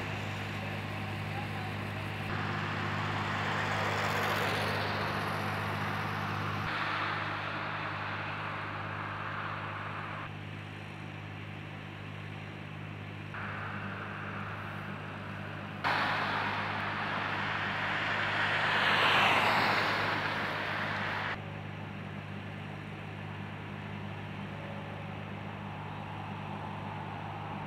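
Steady low engine hum with road traffic passing over it; one vehicle passes louder about two-thirds of the way through. The background changes abruptly several times where the footage is cut.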